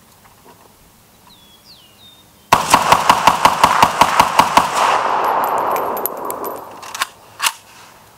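AK-47-pattern rifle (Century Arms C39, 7.62×39mm) firing through its muzzle brake: a rapid string of about fifteen shots, around six a second, starting about two and a half seconds in. The reports roll off in a long echo. Two sharp clanks follow near the end.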